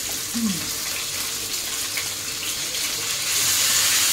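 Tilapia frying in oil on a flat pan, a steady sizzle that grows louder about three seconds in as the fish are turned with a metal spatula.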